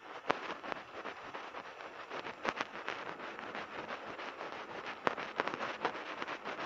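Hands rolling sticky cilok dough of tapioca and wheat flour into balls between the palms: a continuous run of soft, irregular slaps and crackles.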